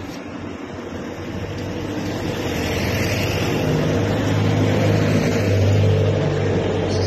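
Street traffic with a bus's engine droning as it passes close by, growing steadily louder.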